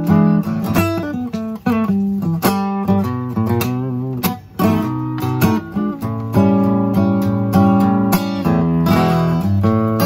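Acoustic guitar strummed through a chord progression, the chords ringing on between strums, with a short break about four seconds in.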